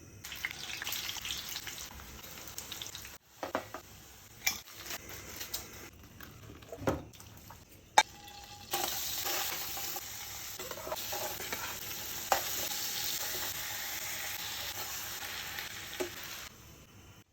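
Food sizzling as it fries in a pan, with the clicks and scrapes of a utensil stirring it. The sizzle jumps in level at a couple of sudden cuts, louder and steadier from about nine seconds in.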